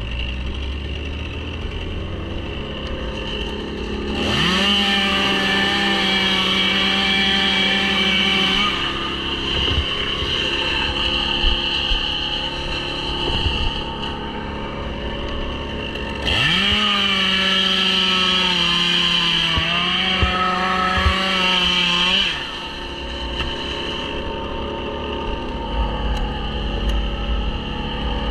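Two-stroke Stihl chainsaw idling, then revved to full throttle twice to cut wood: about four seconds in for roughly four seconds, and again about sixteen seconds in for about six seconds, the pitch sagging a little under load.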